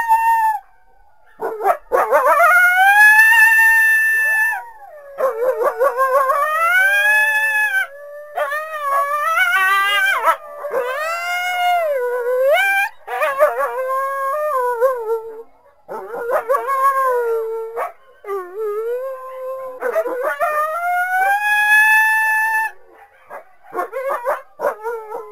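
Coyotes howling: a run of long, wavering howls that rise and fall in pitch, separated by short breaks, with two or more voices overlapping in the middle. Near the end the calls break into short, choppy yips.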